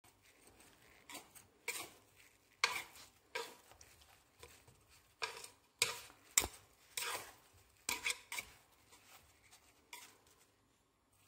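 Chopsticks tossing cubes of bread in a wooden bowl to coat them with granulated sugar. It makes irregular scrapes and clicks of chopsticks against the bowl and the bread, which thin out near the end.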